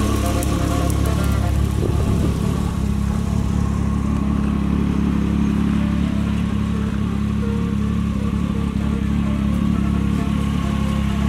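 A Can-Am side-by-side's engine idling steadily.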